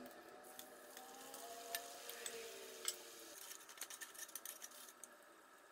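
Faint crackling and ticking of thenga vadas deep-frying in coconut oil, the ticks scattered and growing denser about halfway through.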